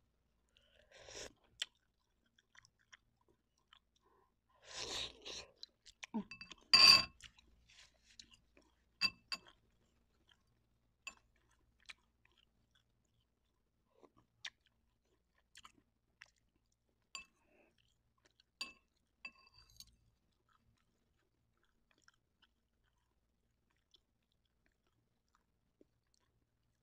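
A person chewing mouthfuls of Indomie instant noodles, in short scattered bouts with small clicks, and one louder brief clatter about seven seconds in. The last several seconds are almost silent.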